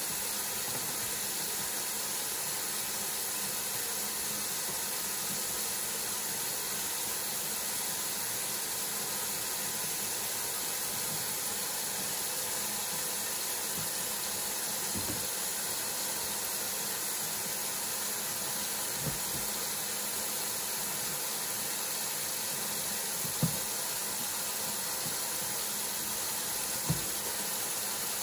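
Kitchen faucet running a steady stream of water into a stainless steel sink, a constant even hiss. A few short, faint knocks come through in the second half, the last two a little louder.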